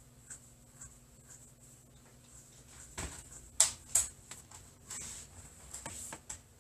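Chalk writing on a blackboard: a knock, then two sharp taps of the chalk against the board a little past halfway, followed by a run of short scratchy strokes.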